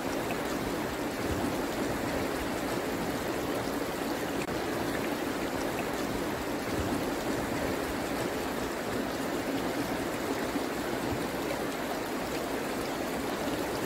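Flowing river water: a steady, even rush of current.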